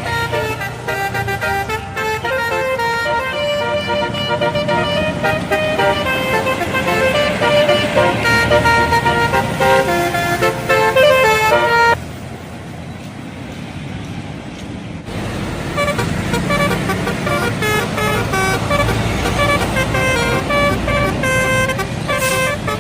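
Bus telolet horns, a set of multi-tone air horns, playing a rapid stepping melody of several notes at once. About twelve seconds in the tune stops and a few seconds of plain traffic noise follow, then a telolet melody plays again.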